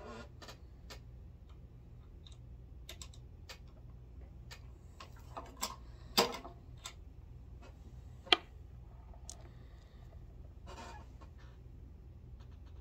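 Light clicks and taps of handling at a reloading bench. About six seconds in, the Lee single-stage reloading press's handle is worked, giving a loud clack, and a second sharp click follows about two seconds later.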